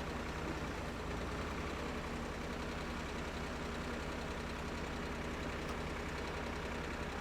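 Water-well drill rig's engine running steadily while drilling.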